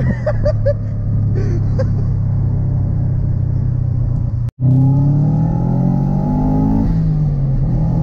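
Turbocharged Subaru Impreza WRX STI flat-four heard from inside the cabin while driving: a steady engine drone. After a brief gap about halfway, the engine pitch rises as the car accelerates, drops once near the end and climbs again.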